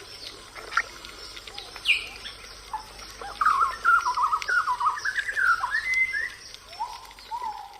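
A bird singing: one rising note about two seconds in, then a quick run of wavering notes from about three seconds in, and two sliding notes near the end. Faint forest background with scattered small ticks lies underneath.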